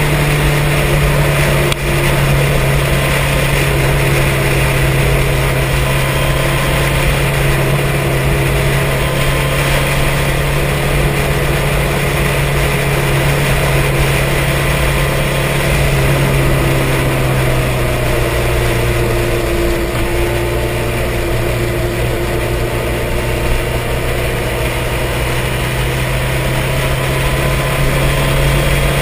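Sport motorcycle engine running steadily at cruising speed, heard from a camera mounted on the bike, under a constant haze of wind and road noise. The engine note drops a little past halfway through.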